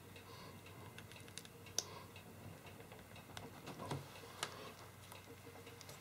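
Faint, scattered small clicks and handling noise of a plastic Anderson PowerPole connector housing and its crimped metal contact being worked together by hand, the clearest click about two seconds in.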